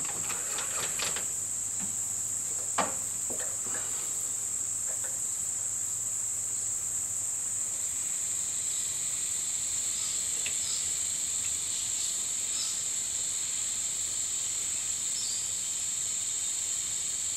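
Light metallic clicks and ticks of a small hole gauge and a micrometer being handled against a lathe-held crankshaft, a few near the start and fainter ones later, over a steady high-pitched whine.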